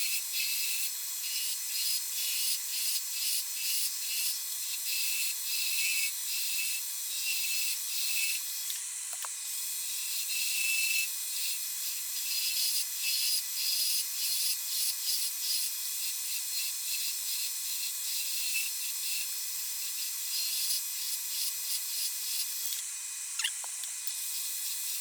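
A turning tool cutting a spinning glued-up wood pen blank on a lathe running at about 1,800 rpm: a steady hiss of shavings with quick, uneven pulses as the tool is worked along the blank.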